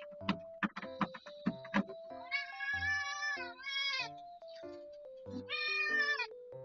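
A cat meowing three times: one long meow, a short one, then another long one, over background music with a plucked melody.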